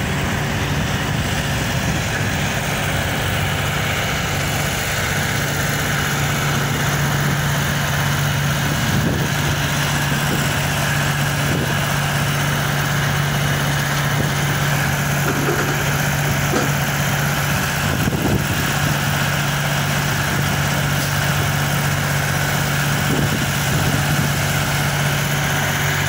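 Large diesel engine idling steadily, an unchanging low hum.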